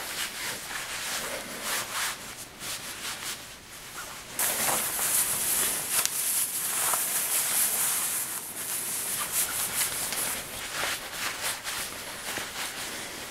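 Necktie fabric sliding and rustling against itself and the shirt collar as the tie is knotted, right up against the microphone, with many small scratchy ticks. The rubbing gets louder and hissier about four seconds in.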